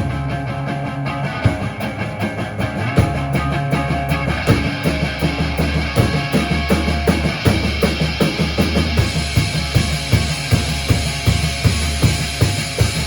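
Rock band playing an instrumental passage on drum kit and guitar, with a steady beat. The drumming gets louder and more driving about four seconds in.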